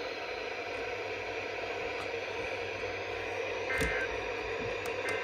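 Steady static hiss with a low hum underneath, with a faint short beep about four seconds in.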